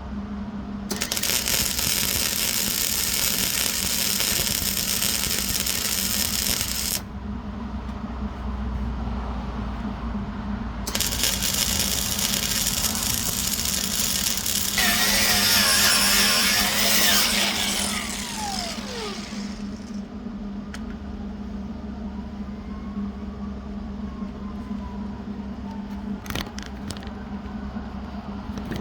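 Arc welding on a steel dumpster hinge: the arc's crackling hiss runs for about six seconds, stops, then runs again for about seven seconds. A steady low hum continues underneath.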